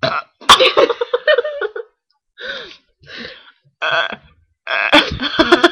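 A young woman gasping and straining, in several short bursts, as she tries to force out a burp that doesn't come.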